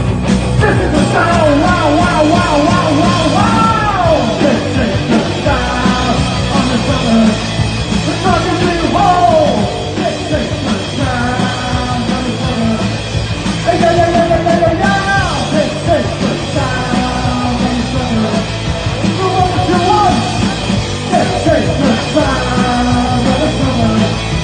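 Live punk rock band playing, with a melody line that bends up and down in pitch over the full band.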